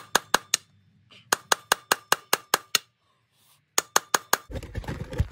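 Quick metallic hammer strikes on a flathead screwdriver, about five a second in three runs with short pauses, driving its ground edge into a steel motorcycle swing-arm pivot tube to peel the bushing's outer casing off the tube wall. A rougher scuffing noise follows near the end.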